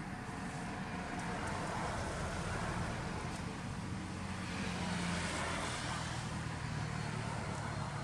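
Motor traffic on a road: a vehicle engine running and driving past, its sound swelling about halfway through and easing off.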